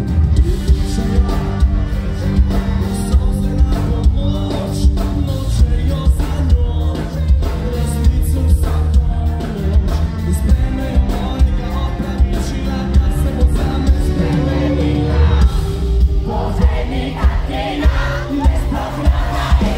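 Live rock band playing electric guitars, bass guitar and drums with a sung lead vocal, heard from within the audience.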